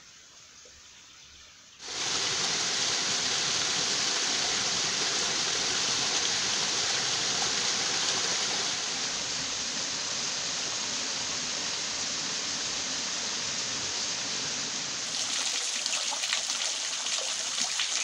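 Steady rushing of water falling down a small waterfall on a mountain stream. It comes in suddenly about two seconds in, after a faint hiss.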